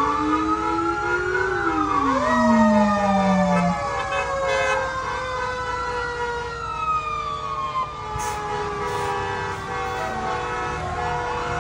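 Several fire engine sirens wailing at once, their pitches rising and falling out of step with each other, with one slower tone falling gradually through most of the stretch.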